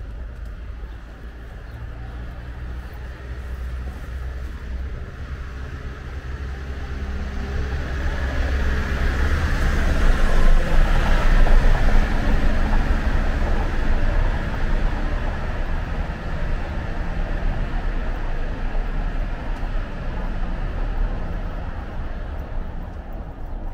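A van driving slowly along a cobbled street, its engine running and its tyres rumbling over the cobbles. The sound grows to its loudest about ten to twelve seconds in, then slowly fades as the van moves off.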